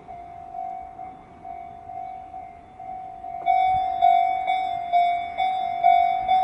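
Japanese railway level-crossing warning bell clanging a little over twice a second, warning of an approaching train. About three and a half seconds in it becomes louder and brighter.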